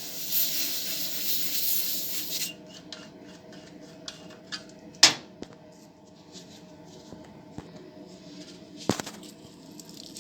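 A steady hiss for about two and a half seconds that stops abruptly, then light ticks and two sharp knocks, about 5 and 9 seconds in, over a steady low hum.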